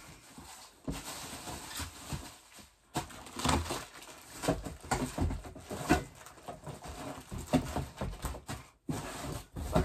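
Irregular rustling and light knocks of household items and packaging being handled and moved about.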